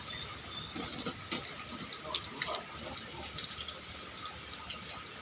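Water trickling and dripping from a lifted fine-mesh net back into a fish pond, with small splashes and drips, busiest in the first few seconds.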